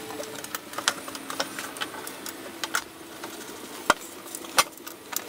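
Scattered clicks and light taps of a plasma cutter's casing cover being fitted back on and fastened by hand, with a sharper knock about four seconds in and another just after.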